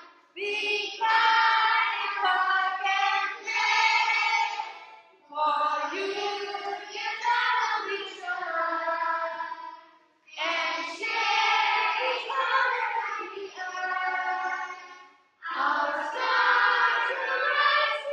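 A group of young children singing a song together, in phrases of about five seconds with short breaks between them.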